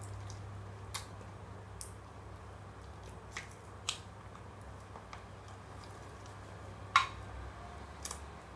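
Clear glue-based water slime being pressed, tipped out of its tub and handled, giving about six short wet clicks and pops, the loudest about seven seconds in.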